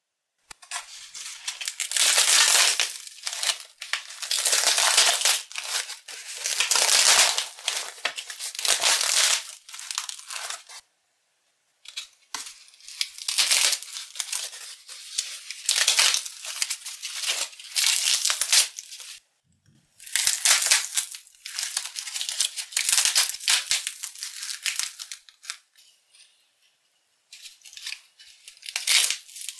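Honeycomb-core cardboard packaging being crushed and torn by hand, its thin paper cells crunching and crackling. It comes in bursts of a few seconds, broken by short pauses.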